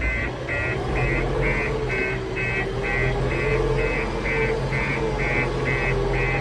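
A JCB-type construction machine's reversing alarm beeping evenly, about two beeps a second, over the steady low running of its engine.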